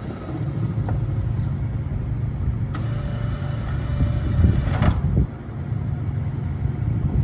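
Polaris Ranger 900 XP side-by-side's twin-cylinder engine idling steadily. A click comes a little under three seconds in, followed by a higher whine for about two seconds.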